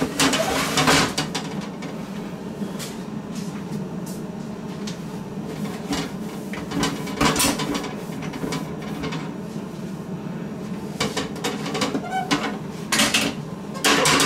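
Plastic ice bin of a Maytag side-by-side refrigerator being pushed into place in the freezer, clacking and knocking, then scattered plastic taps and clunks while the freezer compartment is handled, over a steady low hum.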